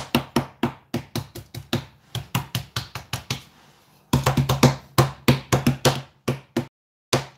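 Flat palms patting a rolled-out sheet of cookie dough on a countertop in quick repeated slaps, about five a second, with a short break just past halfway and a last pat near the end.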